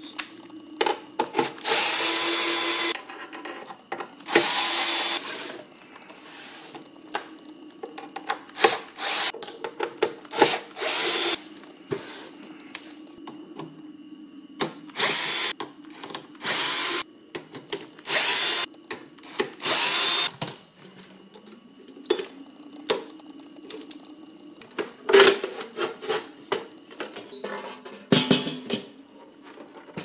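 Cordless drill-driver running in many short runs, each up to about a second long, backing out the metal case screws of a bench power supply, with clicks and handling noise in between.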